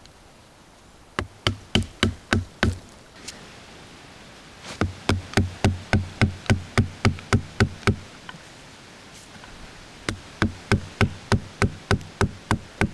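Wooden-handled hatchet chopping into a branch in quick strokes, about three to four a second, in three runs separated by short pauses.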